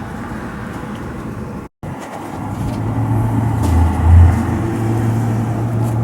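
A low, steady droning hum, the so-called 'strange sky noise', which the recordist says was not boat or train horns. It swells into a deeper rumble about four seconds in. It drops out completely for a split second a little before two seconds in, where repeated stretches of the recording are spliced together.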